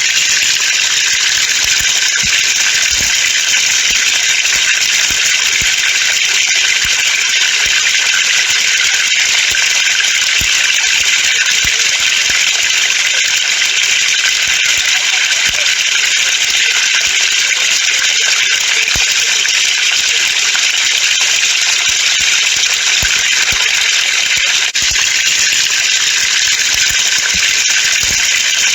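Water falling from a pipe and splashing, a steady, even spatter without pauses.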